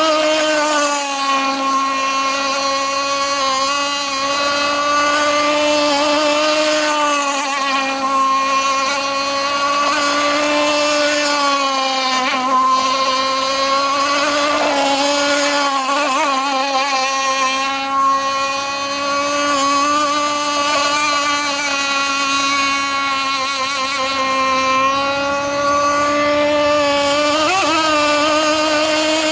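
RC speedboat's 7316 motor running at high speed, a steady whine with many overtones. Its pitch wavers and dips slightly now and then, as around the middle and near the end.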